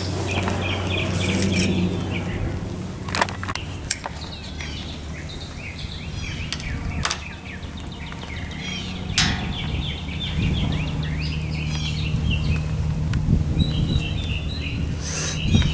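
Birds chirping and calling over a steady low hum, with a few sharp clicks.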